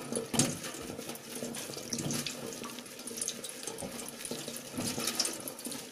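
Tap water running into a stainless-steel kitchen sink and splashing unevenly as hands scrub and rinse relaxer out of wet hair held under the stream.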